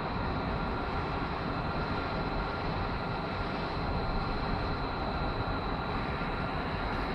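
Steady background noise of a large indoor hall, even and unchanging, with a faint high steady whine running through it.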